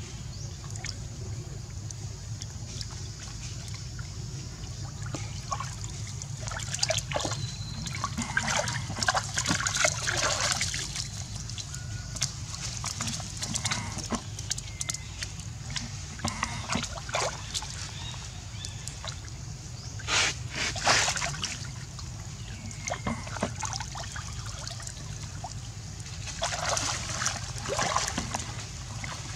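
Macaques swimming and splashing in a pool, with louder bursts of splashing about a quarter of the way in, around two-thirds of the way in, and near the end, over a steady low background noise.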